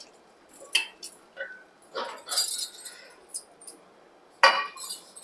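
Light clinks and clatters of kitchen utensils, a few scattered strikes with the loudest a little past four seconds in. This is most likely roasted pepper, coriander and cumin being tipped into a mixer-grinder jar ready for grinding.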